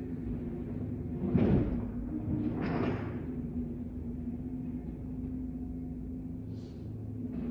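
John Deere 317G compact track loader's diesel engine running steadily, heard through window glass. Twice, about a second and a half apart, a louder clatter and scrape as the bucket pushes into loose brick pavers.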